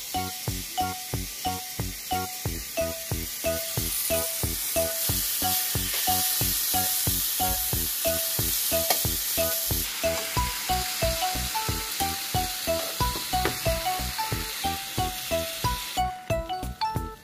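Kimchi sizzling as it fries in a pan while being turned with metal tongs; the sizzle is strongest a few seconds in, then eases. Background music with a steady beat and a melody plays throughout.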